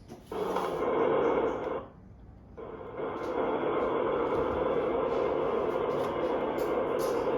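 Simulated engine sound played through the onboard speaker of a radio-controlled hydraulic Hitachi excavator model: a steady, thin-sounding rumble. It cuts out for well over half a second about two seconds in, then resumes.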